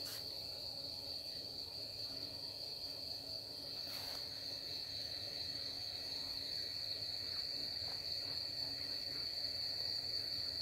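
Cricket trilling in one steady, unbroken high-pitched tone, over a faint low background hum.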